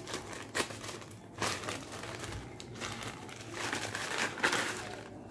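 Plastic courier bag crinkling and rustling in irregular bursts as it is cut open with scissors and handled, a little louder about one and a half seconds in and again around four seconds in.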